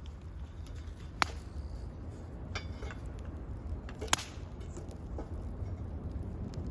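Two sharp cracks about three seconds apart, with a few fainter ticks, over a steady low rumble.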